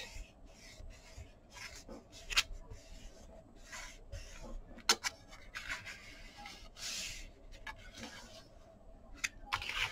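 Hands rubbing and sliding kraft cardstock pieces of a handmade folio on a cutting mat: soft scattered paper rustles and rubs, with a couple of light clicks.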